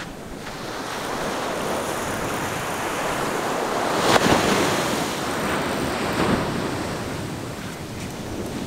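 Ocean surf washing onto a beach, swelling to a loud crash about four seconds in and a smaller one about two seconds later, with wind noise on the microphone.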